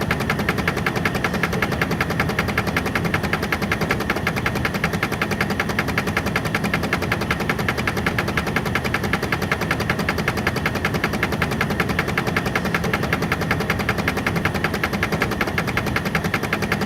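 Machinery running with a fast, even, mechanical rattle that holds steady throughout.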